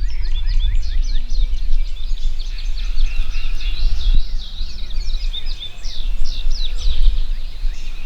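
Many songbirds singing at once, short chirps and trills overlapping throughout, over a steady low rumble.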